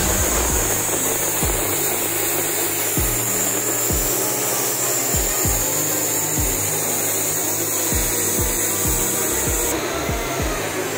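Steady, loud industrial workshop noise: a machinery hum under a strong hiss, with soft irregular low thumps about twice a second.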